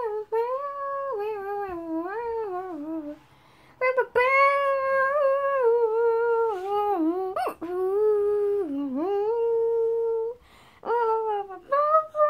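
A child humming a wordless tune: long held notes that step and slide up and down in pitch, with brief breaks about three seconds in and again near the end.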